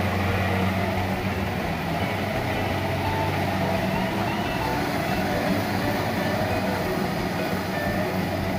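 Kubota combine harvester running steadily while harvesting rice: a continuous engine hum with the rattle of its cutting and threshing machinery.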